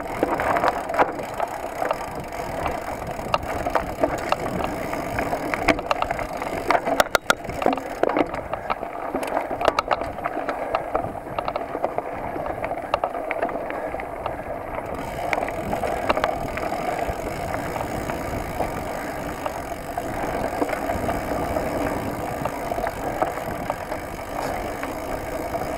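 Mountain bike riding over a dirt forest singletrack: tyres on the dirt and the bike rattling over bumps, with a cluster of sharp knocks and clatters about seven to ten seconds in.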